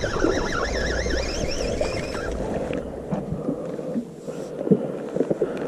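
Wind buffeting the microphone over open water, with a warbling whistle-like tone for the first two seconds and a few sharp knocks near the end.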